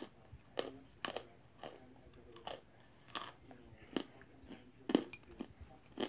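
A person chewing a stick of Cra-Z-Art chalk, the chalk crunching between the teeth in irregular crunches about every half second.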